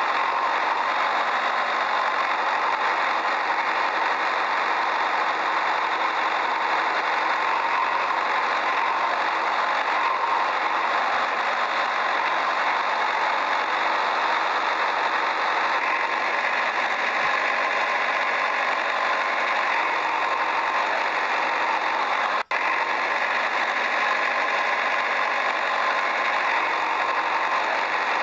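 A steady, continuous engine-like running sound that does not change in pitch or level, with a momentary cut about 22 seconds in.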